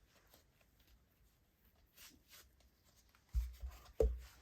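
Handling of a heavy leather replica wrestling belt with metal plates as it is flipped over: faint rustling and scraping, then two dull low thumps near the end.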